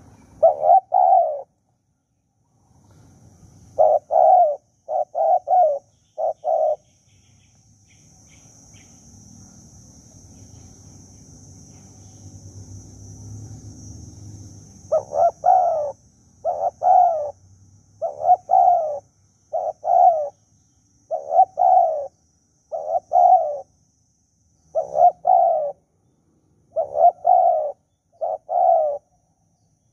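Spotted dove cooing: one phrase at the start, a quick group of phrases a few seconds in, a pause, then phrases repeated about once a second through the second half.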